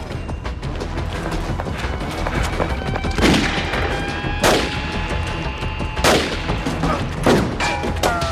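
A series of gunshots in a shootout, the four loudest spaced about one to one and a half seconds apart in the second half, each with a short echo, over background music.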